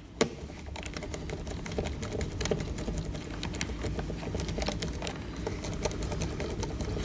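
Irregular small clicks and scrapes of a wire being pushed into a DIN-rail spring-clamp terminal block held open with a screwdriver, with one sharper click near the start.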